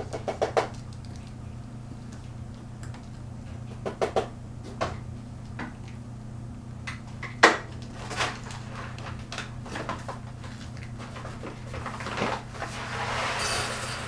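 Hollow plastic toy ball being nosed and batted by a cat across a vinyl floor: scattered knocks and clatters, the sharpest about halfway through, and a scraping rush of the ball rolling near the end.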